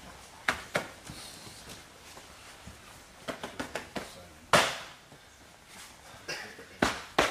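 Open-hand slaps and strikes on a person's body, about a dozen sharp smacks in an irregular series: a quick cluster of five about three and a half seconds in, the loudest just after, and three more near the end. They come from an instructor's revival strikes on a downed man.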